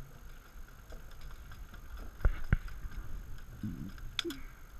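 Two sharp knocks about a third of a second apart, amid low rumbling handling noise, with a brief scuff and a high click near the end.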